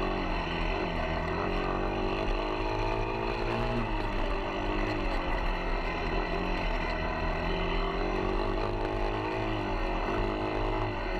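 Off-road vehicle engine running steadily, its pitch rising and falling with the throttle.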